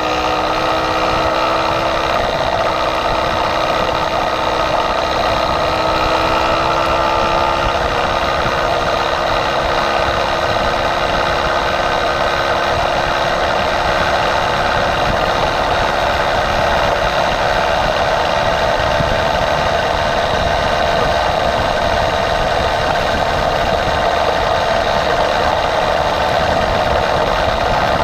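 Motorized bicycle's small engine running at speed, its pitch rising over the first several seconds and then holding steady, over a steady rush of wind and road noise.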